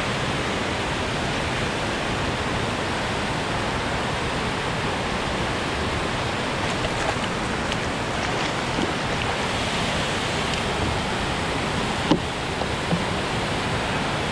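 Steady rushing of water pouring over a dam spillway, an even noise that does not change, with a few faint clicks and one sharp knock near the end.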